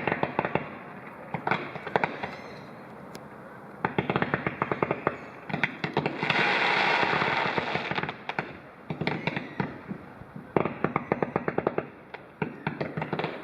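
Fireworks display going off in rapid clusters of sharp cracks and pops, with a dense hissing crackle lasting about two seconds in the middle.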